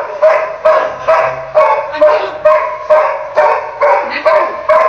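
A dog barking over and over in a fast, even rhythm, about three barks a second, each bark loud and at much the same pitch.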